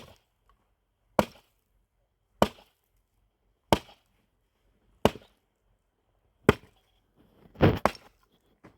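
Firewood being chopped: six sharp, evenly paced blows a little over a second apart, then two or three quicker blows near the end.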